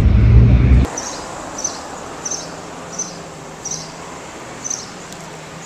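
A loud low-pitched sound cuts off sharply about a second in. Quieter outdoor street ambience follows, with a faint steady hum and a short high chirp repeating about every two-thirds of a second, six times.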